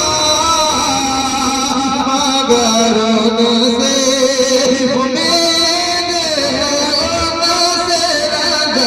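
A man singing an Urdu naat in long drawn-out notes that are held and slide slowly in pitch, without clearly spoken words.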